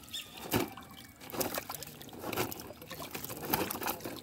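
Silver carp thrashing in shallow water inside a fishing net, making irregular splashes and dribbling, trickling water.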